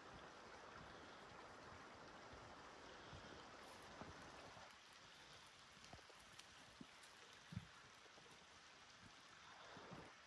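Near silence: faint hiss that drops away about halfway through, with a few faint, short ticks in the middle.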